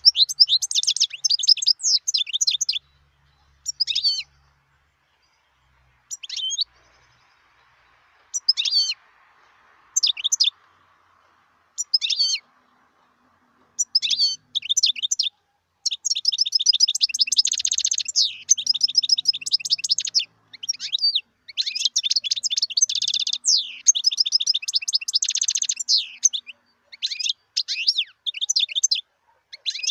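European goldfinch singing: short bursts of rapid, high twittering with gaps between them, then near-continuous song from about halfway through.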